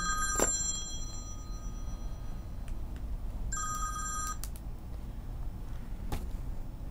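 A telephone ringing with a steady electronic ring of several high tones. One ring dies away about a second and a half in, and a shorter ring comes in about three and a half seconds in, with a few light clicks in between.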